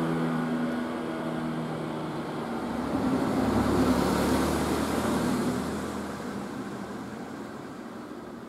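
Road traffic: a steady engine hum fades out, then a vehicle passes, the noise swelling to its loudest about four seconds in and dying away.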